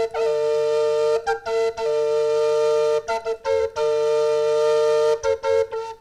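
Bamboo drone flute played solo: a slow melody of long held notes over a steady, unchanging drone note, with quick ornamented notes between the held ones. The playing breaks off just before the end.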